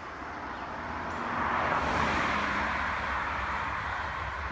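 A car passing on the road: tyre and engine noise swelling to a peak about two seconds in, then fading away.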